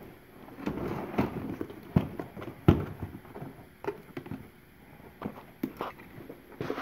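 Items being handled and shuffled about in a box of fishing tackle: scattered knocks and clicks over rustling, the sharpest knocks about two seconds and nearly three seconds in.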